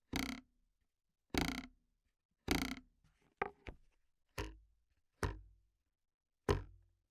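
Seven separate foley hits made with hand-held props such as sticks or brushes, roughly one a second. The first three are longer and fuller; the later ones are sharper strikes that die away quickly.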